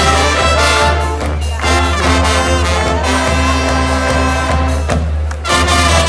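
A brass band playing live music, with trumpets and trombones to the fore.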